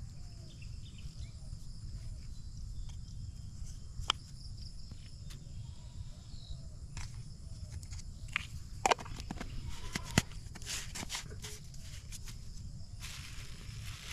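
Sharp clicks and taps from a stick and jar as fishing bait is scooped and mixed by hand, loudest a few times in the second half. Plastic sheeting crinkles near the end. Under it runs a steady high insect drone and a low wind rumble on the microphone.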